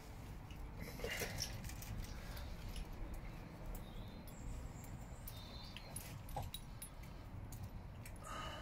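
Faint scattered clicks and light scrapes of a small spatula working acrylic glue over a horse's hoof sole, over a low steady background rumble.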